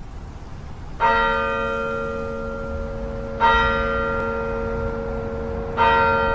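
A church bell struck three times, about two and a half seconds apart. Each stroke rings on and fades slowly over a low rumble.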